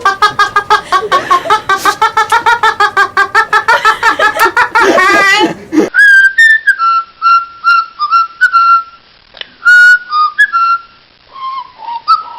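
For about the first six seconds, a loud, rapid, evenly pulsed sound with a wavering pitch. Then a parrot whistles a tune of clear notes, some held and some sliding up or down, with short pauses between them.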